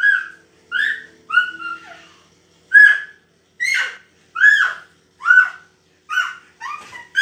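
A toddler girl giving a run of short, high-pitched squeals, about one a second, each rising then falling in pitch.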